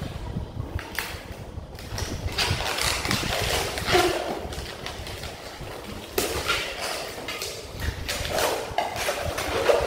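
Inflated latex modelling balloons squeaking and rubbing against each other as they are twisted and wrapped together by hand, with short squeaks around four seconds in and again near the end.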